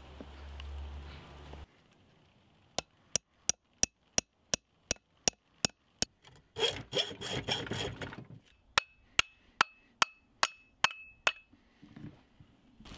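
Hammer knocks seating an axe head on its wooden handle and driving in the wedge that locks it: a quick, even series of sharp strikes, about two to three a second. About halfway they give way to a second or two of scraping mixed with knocks, and the later strikes carry a short metallic ring.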